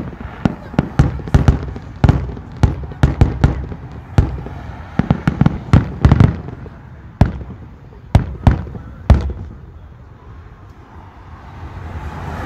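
Aerial firework shells going off: a fast run of bangs and crackles, thinning out after about six seconds, with the last few loud bangs about eight to nine seconds in.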